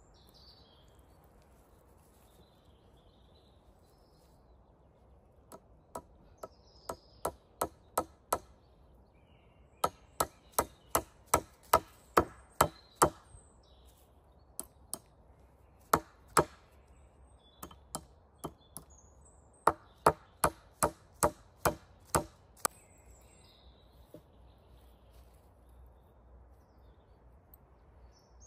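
Chopping into wood with a blade, sharp blows about two to three a second in several bursts of up to about ten, the first burst growing louder. Small birds chirp between the bursts.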